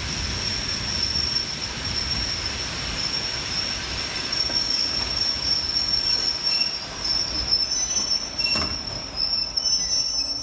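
Passenger train's wheels squealing in a steady high-pitched tone as it brakes slowly along a station platform, over a low rolling rumble. The squeal stops near the end as the train comes to a halt.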